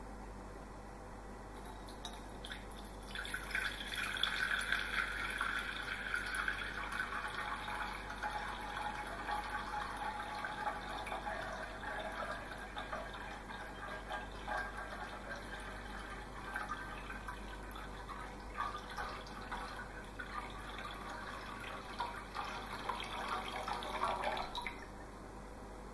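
A thin stream of water poured into a glass bowl, splashing steadily as the bowl fills. It starts about three seconds in and stops abruptly shortly before the end.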